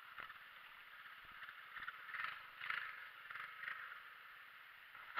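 Faint footsteps crunching in snow, a few louder steps in the middle, over a steady hiss.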